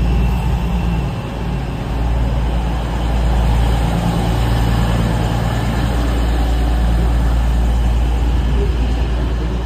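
East Midlands Railway Class 222 Meridian diesel multiple unit running, a steady low diesel rumble whose engine note strengthens slightly about four seconds in.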